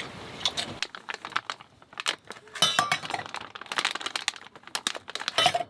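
Irregular light clinks and clatters of camp cookware and utensils knocking together. Two of the clinks ring on briefly, about three seconds in and again near the end.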